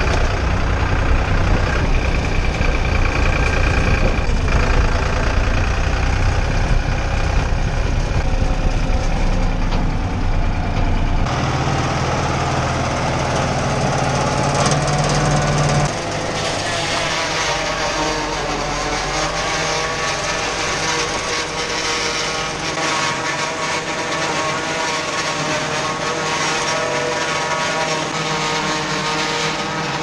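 New Holland TN70DA tractor's diesel engine running, heard from inside the cab while driving. About sixteen seconds in this gives way to the tractor and its PTO-driven Sip Vihar 40 one-row corn chopper running while chopping corn, a steady engine sound with several steady tones above it.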